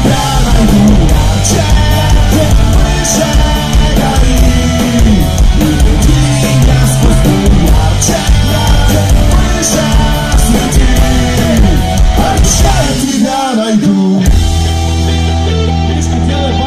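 Live punk-rock band playing loud: electric guitars, drums with regular cymbal hits, and a Klira electric bass guitar. About 13 seconds in the drums and bass drop out for a moment, then the band holds a long ringing chord.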